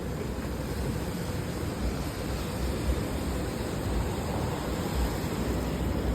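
Steady rainy-street ambience: an even rushing noise of falling rain, heaviest in the low end, with no distinct events.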